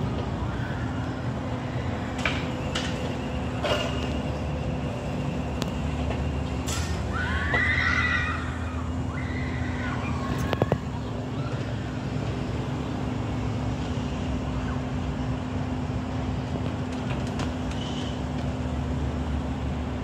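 Construction plant machinery running steadily, a diesel drone with a constant low hum, broken by scattered metallic knocks and clanks. About eight seconds in, a short wavering high-pitched squeal. Two and a half seconds later comes a sharp cluster of knocks, the loudest in the stretch.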